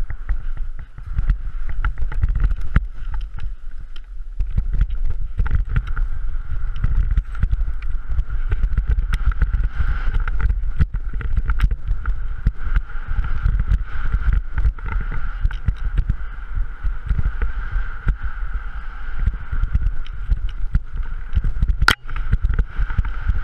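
Wind buffeting and rumbling on an action camera's microphone during a fast ski run through deep powder, with irregular thumps as the skis cut through the snow. A steady high tone runs underneath, and there is one sharp knock near the end.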